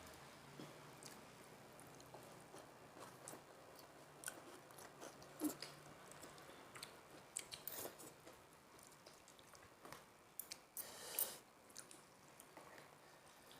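Faint eating sounds: chewing and crunching through a meal of boiled instant noodles, egg and krupuk crackers, with scattered short sharp bites and one longer, louder noise about eleven seconds in.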